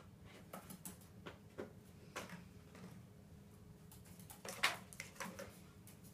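Scattered light clicks and taps of a parrot's feet and beak on a kitchen bench and a plastic bottle, with one sharper knock about two-thirds of the way through, over a steady low hum.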